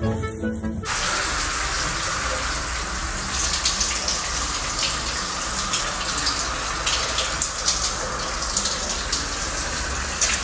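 A steady rushing hiss of running water that starts abruptly about a second in.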